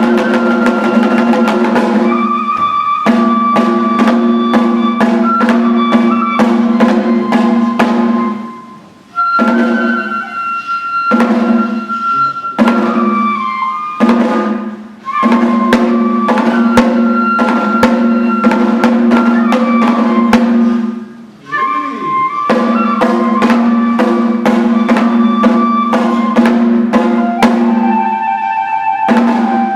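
Daikagura festival music: drums and percussion keeping a fast, steady beat under a melody line, possibly flute. The music breaks off briefly about nine and twenty-one seconds in, then picks up again.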